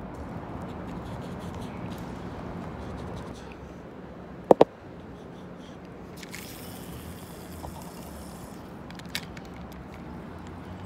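Steady city background noise with two sharp, loud clicks in quick succession about halfway through and a fainter click near the end: handling noise while a freshly caught horse mackerel is taken off a small lure by hand.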